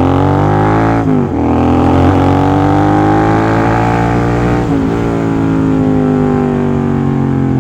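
Royal Enfield GT 650's 648 cc parallel-twin engine through an AEW full-system aftermarket exhaust, accelerating under way: the pitch climbs, dips briefly about a second in and again near five seconds as gears are shifted, then holds steady.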